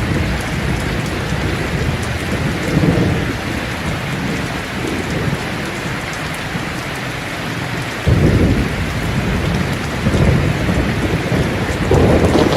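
Heavy rain falling steadily, with thunder rumbling underneath; a loud rumble of thunder breaks in suddenly about eight seconds in, followed by more rolling rumbles near the end.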